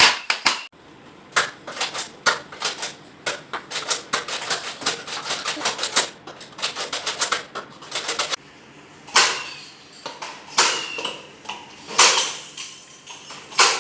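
Nerf Modulus Tri-Strike spring blaster being worked and fired: a fast run of sharp plastic clicks and clacks, then four louder separate clacks a second or so apart, each with a short ring.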